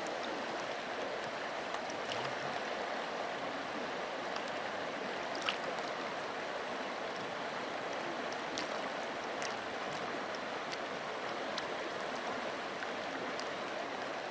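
Shallow river current running steadily over a riffle, an even rushing noise, with a few short ticks over it.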